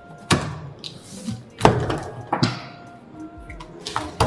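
A cardboard shipping box being opened: a utility knife slicing the packing tape and the flaps pulled back, giving a few sharp cardboard thuds with scraping and rustling between them.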